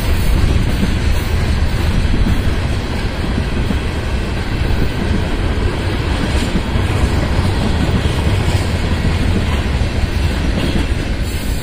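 Freight train's tank cars and a covered hopper rolling past, their steel wheels on the rails making a steady, loud, low rolling noise that never lets up.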